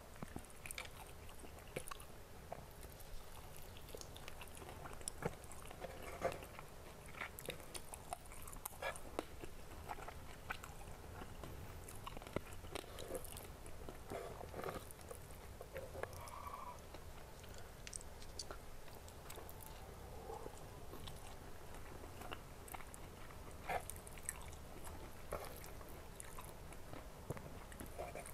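Faint, close-miked chewing and biting of crispy fried chicken, with many small scattered crunches and crackles.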